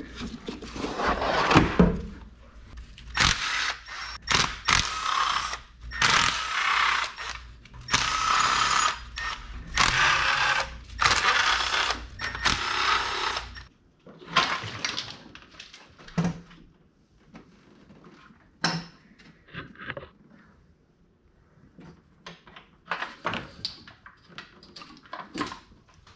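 Intake manifold being unbolted and removed from a Corvette LS6 V8: a series of loud whirring bursts, about a second each, from a power tool or ratchet on the manifold bolts. After about fourteen seconds these give way to scattered clicks and clunks of parts and tools being handled.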